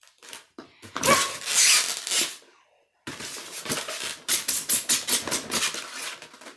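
Packaging being ripped open and handled: a burst of tearing about a second in, then a dense run of quick crackling and rubbing as a polystyrene box is lifted and turned.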